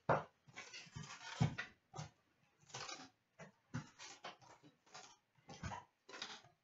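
Cardboard trading-card hobby box and its packs being opened and handled: an irregular run of short rustles, scrapes and knocks, the loudest right at the start and about a second and a half in.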